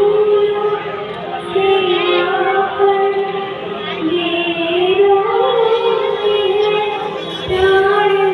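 A young girl singing a patriotic song into a handheld microphone, holding long notes that slide up and down in pitch.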